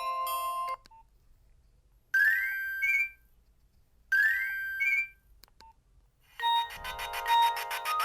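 Nokia 1600 ringtones playing from the phone's speaker. One tune cuts off under a second in, a short rising run of notes sounds twice about two seconds apart, and near the end another tune begins with fast, pulsing notes.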